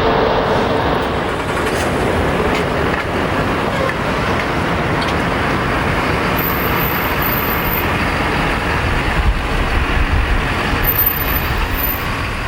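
Jet engines of a four-engine Boeing 747-8I airliner, a steady loud rumble as it rolls down the runway after landing, with a faint whine fading early and the low rumble swelling briefly about nine seconds in.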